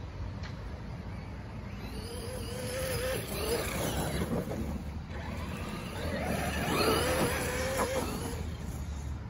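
Traxxas Maxx electric RC monster truck running on grass. Its brushless motor and gears whine in two throttle bursts, about two seconds in and again about six seconds in, the pitch rising and falling with the throttle. A low rumble sits underneath.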